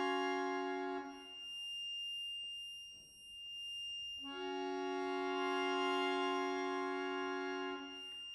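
Solo button accordion playing long held chords: one chord cuts off about a second in, a pause follows with only a thin high note lingering, and a second long chord starts about four seconds in and holds until near the end.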